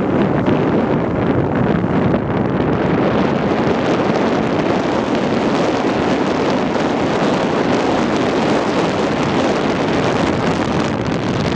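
Steady, loud wind rushing over the microphone of a camera riding in a moving car, with the car's road noise underneath.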